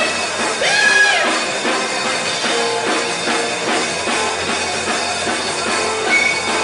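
Rock music: electric guitar over a drum kit keeping a steady beat, with one note bent up and back down about a second in.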